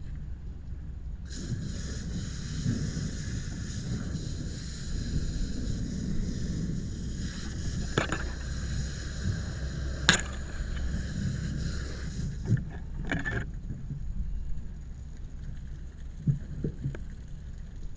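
A steady low rumble, with a loud hiss that starts about a second in and cuts off suddenly after about eleven seconds, then a brief second hiss. A couple of sharp clicks fall during the hiss.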